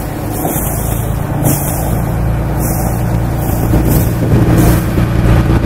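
Passenger boat's engine running steadily under way, with a rushing hiss of water and wind over it that swells about once a second.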